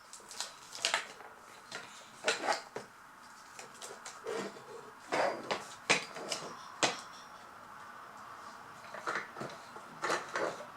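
Small plastic toy pieces and packaging being handled: irregular clicks, taps and light rustles, with a cluster of sharper clicks around the middle and again near the end.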